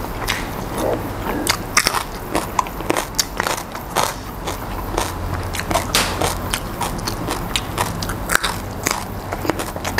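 A person chewing and crunching fresh herbs and vegetables close to a clip-on microphone: a dense, irregular run of sharp crunches and wet mouth clicks.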